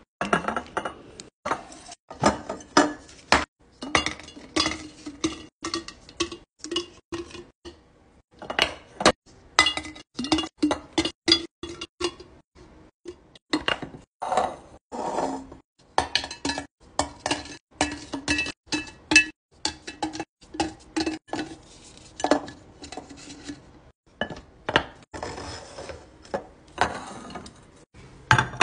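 Glass jars and their wooden lids clinking and knocking on a countertop as they are handled, lifted and set down: a rapid, irregular run of sharp clinks and knocks.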